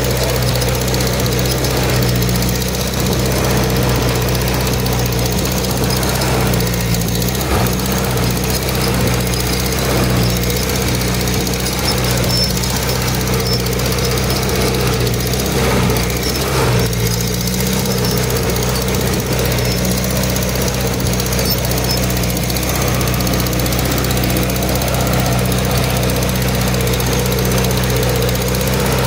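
Farm tractor engine running steadily while pulling a plow, heard close up from the driver's seat.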